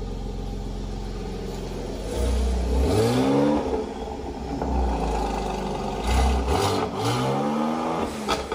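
Mercedes-AMG C43 coupe's twin-turbo V6 idling, then revved twice from the exhaust, each rev rising and falling in pitch over about a second, the first about two seconds in and the second about six seconds in.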